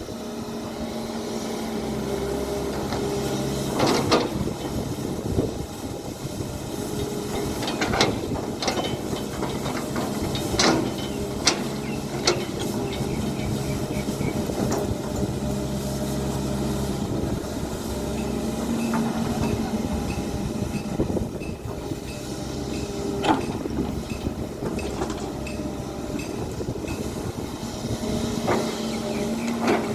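Hydraulic excavator's diesel engine running steadily under load, with sharp metallic clanks and knocks now and then, heaviest in a cluster around the middle, as the machine works.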